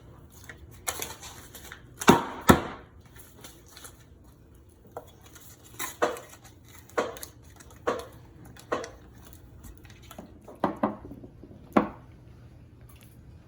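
Dishes and kitchen utensils clinking and knocking as they are handled, in separate sharp knocks. The two loudest come about two seconds in, and smaller ones follow every second or so.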